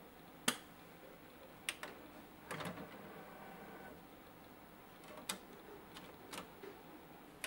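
Pioneer X-EM26 CD receiver's disc tray: a few faint clicks, then a short motor whir as the tray slides open about two and a half seconds in, followed by light clicks as a CD is set onto the tray.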